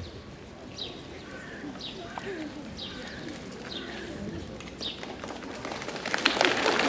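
A bird calls repeatedly outdoors, a short high chirp that drops in pitch, about once a second. Near the end, applause breaks out.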